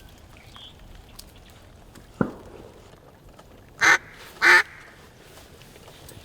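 A mallard duck call blown in two loud, short quacks about half a second apart, calling to circling mallards. A single sharp click comes about two seconds before them.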